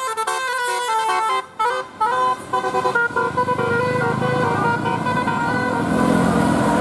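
Bus's multi-tone 'telolet' basuri horn playing a quick melody of short stepped notes, then holding tones for about two seconds. Near the end the horn gives way to engine rumble and road noise.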